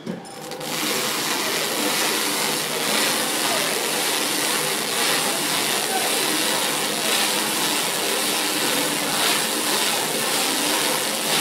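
Box stretch-wrapping machine starting up and running, its motor-driven turntable spinning the box as it is wrapped: a steady running noise that comes on about half a second in.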